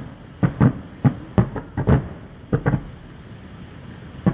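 Fireworks shells bursting: a string of sharp bangs, about nine in irregular clusters over the first three seconds, then a lull of about a second and a half.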